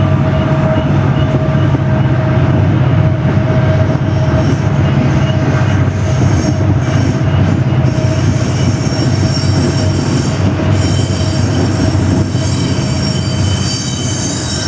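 SD70ACU diesel-electric helper locomotives working hard under load, with a steady turbocharger howl over the engine rumble, mixed with wheel flange squeal from cars rounding the curve. The sound holds steady and loud throughout.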